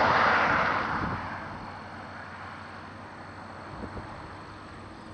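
Wind and road noise while riding on a motorcycle: a loud rush of air in the first second dies down over the next couple of seconds to a steady, lower noise with a faint low rumble.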